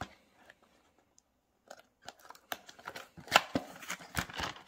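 Small cardboard retail box being opened by hand, the flaps pulled back and the box handled. Starting about two seconds in, there is an uneven string of crackles, clicks and scrapes of thin card.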